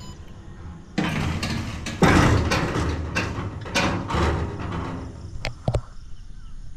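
Railway level-crossing boom barrier being lowered, its mechanism rattling and clanking for about four seconds from a second in, then two sharp knocks.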